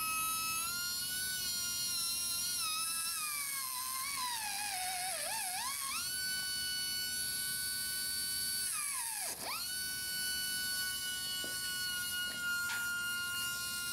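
High-speed die grinder spinning an EZ Thread diamond rotary thread file against the damaged threads of a steel crankshaft, cleaning up the thread lead-in. It gives a steady high whine that sags in pitch for a couple of seconds about four seconds in, then climbs back. About nine seconds in it briefly drops away and spins back up.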